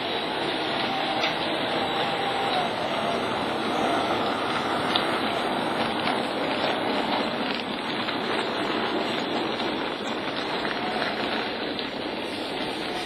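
Model railway locomotives running: a model EWS Class 08 shunter and a model Class 37 hauling wagons, giving a steady rumbling hiss of small motors and wheels on the track with a faint wavering motor whine and a few light clicks.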